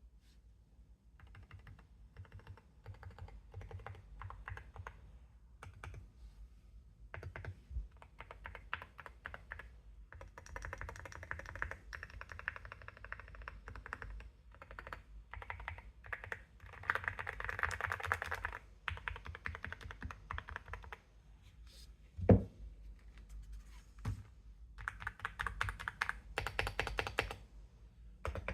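Typing on a mechanical keyboard, with quick runs of keystrokes in bursts and brief pauses between them. One loud thump about two-thirds of the way through.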